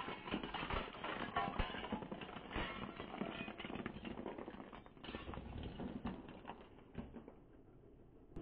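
Car tyre rolling over and crushing colour-striped fluorescent light tubes: a dense crackle of glass snapping and shards crunching. It thins out about five seconds in and fades low near the end.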